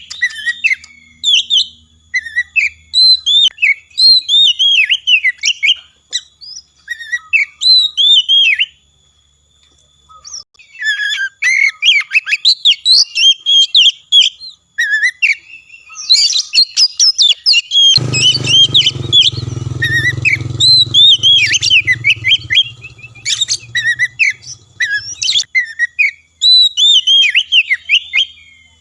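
Oriental magpie-robin singing a fast, varied song of high whistles and chirps in quick phrases, with a couple of short pauses. A low hum runs underneath for several seconds past the middle.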